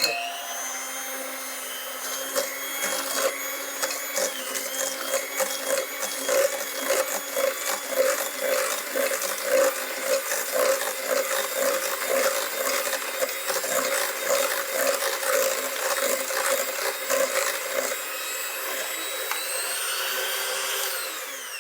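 Electric mixer running steadily as it beats butter, eggs, sugar and salt for a cinnamon-roll dough, with irregular clicking and knocking through it. Near the end it is switched off and its whine falls in pitch as it winds down.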